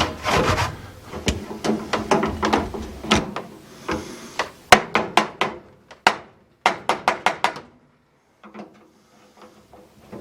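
Metal parts of a gas barbecue knocked and clicked while it is being taken apart: a run of sharp clanks and clicks in two quick clusters past the middle, then it goes almost quiet.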